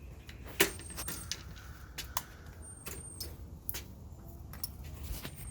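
Scattered light clicks and metallic clinks of hand tools and small hardware being picked up and handled, the sharpest about half a second in, over a low steady rumble.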